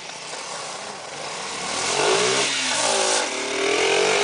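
Small mini bike engine revving as it is ridden, its note rising and falling with the throttle and growing louder about halfway through as the bike comes closer.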